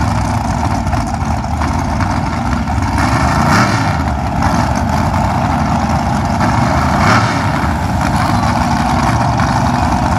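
Race cars' engines running loudly at the drag strip's starting line, with brief swells in pitch about three and a half and seven seconds in, as the cars are revved while staging.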